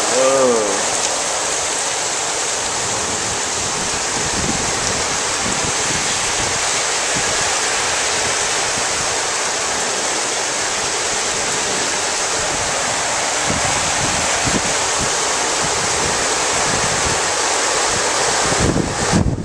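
Heavy rain pouring down steadily, a loud even rush, with water streaming off a roof edge. Near the end, gusts of wind buffet the microphone.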